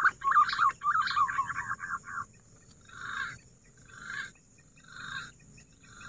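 Punai (green pigeon) calls. A quick run of wavering whistled notes lasts about two seconds, then softer, hoarser calls repeat about once a second.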